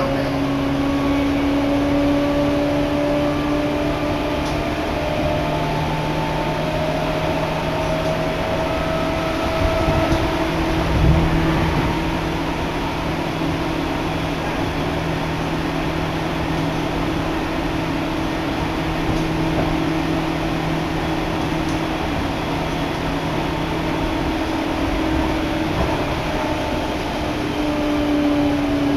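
Electric commuter train running, heard from inside the carriage: a steady rumble with a motor whine of a few tones that rise slightly early on, hold, then glide down near the end. A single low knock about eleven seconds in.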